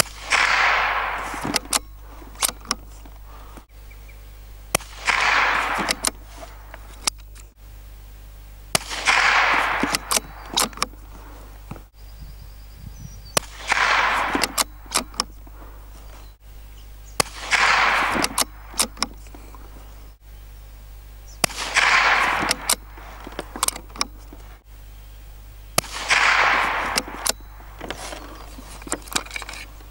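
Lithgow LA101 .22LR rifle firing a slow string of single shots at a 100-yard target, seven in all, about four seconds apart. Each shot is a sharp crack with an echo that fades over about a second, and short sharp clicks fall between the shots.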